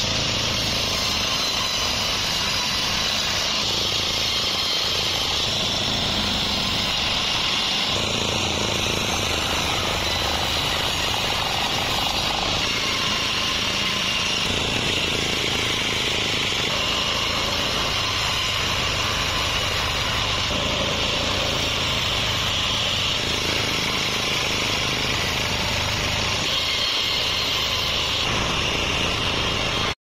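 Band sawmill running and cutting through logs: a steady machine noise with a high hum from the blade, unbroken throughout.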